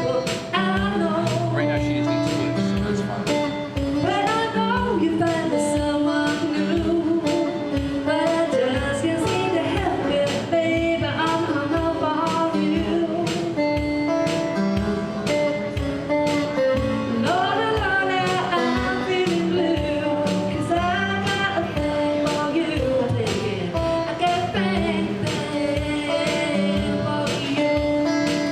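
A woman singing to her own guitar accompaniment, the guitar strummed in a steady rhythm under the sung melody.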